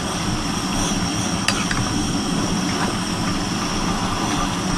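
Chicken and vegetable stir fry sizzling steadily in a pan, with one sharp tap about one and a half seconds in.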